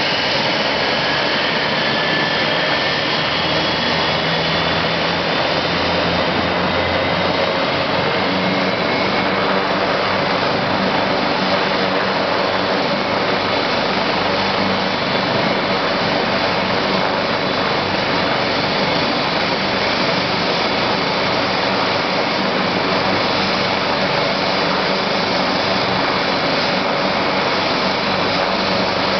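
AgustaWestland AW139 helicopter's twin turboshaft engines and main rotor running on the ground. A high turbine whine rises in pitch over the first several seconds, then the sound holds steady.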